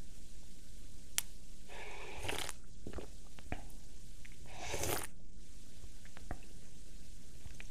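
A man drinking water from a glass mug: two short sips about three seconds apart, with a few light clicks.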